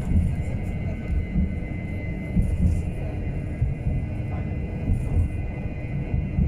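Ride noise of a tram heard from inside the car while it moves: a steady low rumble of the wheels on the rails, with uneven low bumps and a faint steady high whine above it.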